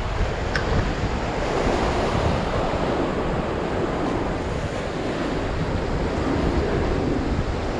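Sea surf washing and breaking over the rocks below, a steady rushing wash, with wind buffeting the microphone.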